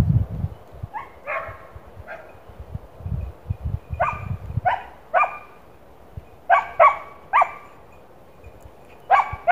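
Hunting hound giving voice on a hare's scent: short high yelps, singly and in pairs, coming quicker near the end. A low rumble fades out in the first half second.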